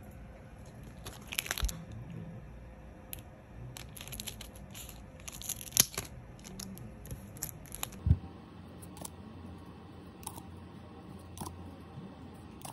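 Scissors cutting open a foil Pokémon card booster pack: several sharp snips and crinkles of the foil wrapper, with a dull thump about eight seconds in.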